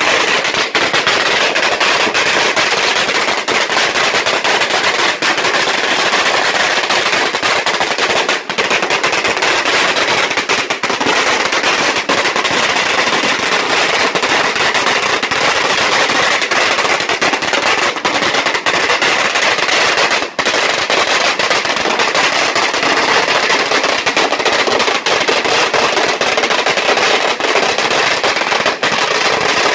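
A long belt of firecrackers going off in a dense, unbroken rattle of rapid bangs at an even loudness.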